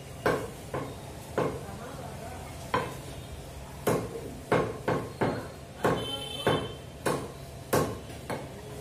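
Butcher's cleaver chopping chicken on a thick wooden log chopping block: about fifteen sharp chops at uneven spacing, some in quick runs.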